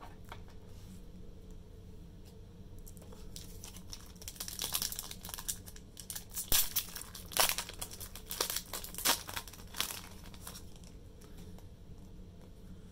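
Pokémon booster pack's foil wrapper crinkling and tearing as it is opened: a run of sharp crackles and rips through the middle few seconds, loudest twice in quick succession.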